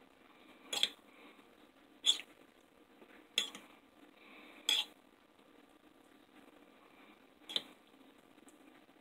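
A spoon stirring cheese into chili in a bowl, clinking sharply against the bowl five times: four about a second and a quarter apart, then one more after a longer pause.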